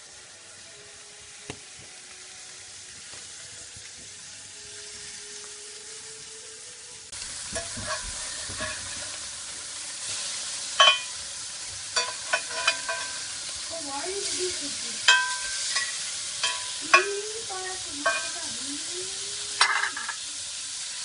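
Burger patties sizzling on a grill over a fireplace fire, the hiss jumping louder about seven seconds in. Sharp clicks and a few short squeaky tones come through over the sizzle.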